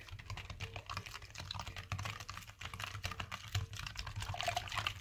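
A wire whisk beating a runny batter of eggs, sugar, oil, milk and yogurt in a glass bowl: a rapid, steady run of clicks as the wires strike the glass, with the wet splash of the liquid.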